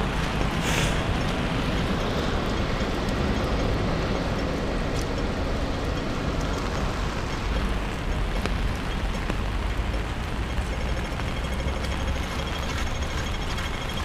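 Strong gusty wind buffeting the camera microphone with a low, steady rumble, over the hiss of heavy rain.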